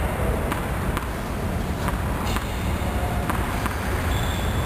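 A handful of sharp, unevenly spaced knocks of a tennis ball on the court and racket, over a steady low rumble in the hall.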